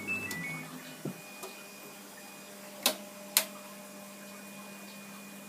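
Samsung heat-pump clothes dryer with a coin box: a few short electronic beeps at the start, a soft thump about a second in, then two sharp clicks about half a second apart, after which a steady low hum runs.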